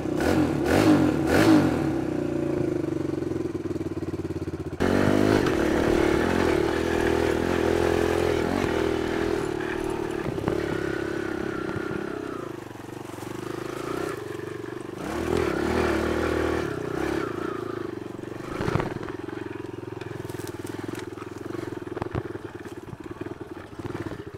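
Kawasaki KLX110 pit bike's small air-cooled four-stroke single-cylinder engine running. It is blipped twice about a second in, then carries the bike along, its note rising and falling with the throttle.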